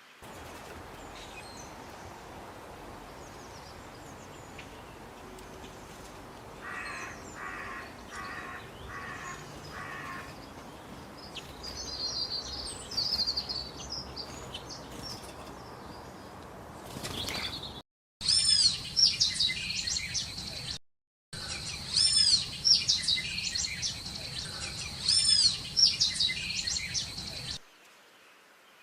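Birds calling. First come faint high chirps over a steady hiss, with a short run of five evenly spaced pulses. Then, after two abrupt breaks, loud high chirping calls repeat in quick arching notes.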